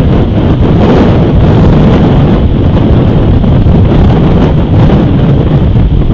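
Wind blowing across an outdoor camera's microphone: a loud, steady rush of noise, heaviest in the low end.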